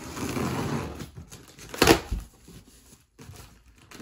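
A blade slitting the packing tape along the top seam of a cardboard box: a noisy scrape for about a second, then a single sharp knock just under two seconds in, the loudest sound, followed by faint cardboard rustling.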